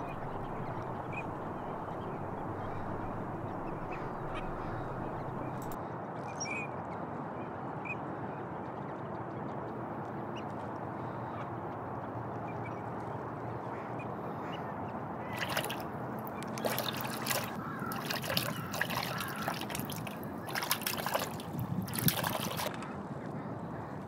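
Steady background hiss, then, from about fifteen seconds in, a string of water splashes from a green-winged teal drake bathing.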